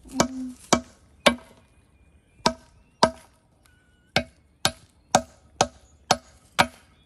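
Claw hammer striking geodes in a plastic zip-top bag on a concrete slab: a series of about eleven sharp knocks, mostly about two a second, with a couple of short pauses.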